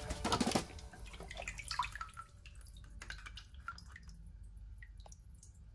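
Water sloshing and splashing as a hand sweeps through a shallow tub for about half a second, then scattered drips falling back into the water from a lifted, wet toy car.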